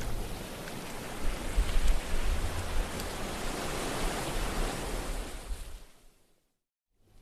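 Wind rushing and buffeting on the microphone, a steady hiss with low gusty rumbles, fading out to silence about six seconds in and coming back faintly near the end.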